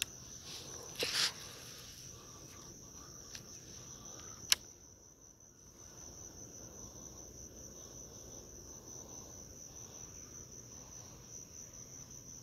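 Insects singing with one steady high-pitched trill, typical of crickets at a pond edge. A short burst of noise comes about a second in, and a single sharp click about four and a half seconds in.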